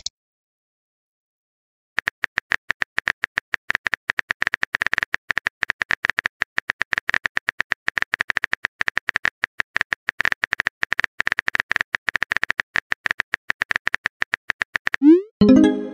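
Phone keyboard typing sound effect: a rapid, irregular run of soft clicks, many per second, starting about two seconds in as a text message is typed out. Near the end a short rising whoosh and a brief chime mark the message being sent.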